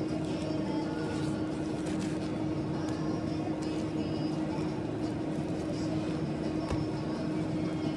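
Steady mechanical hum of commercial kitchen equipment, with one held low tone, and a single light knock about two-thirds of the way through.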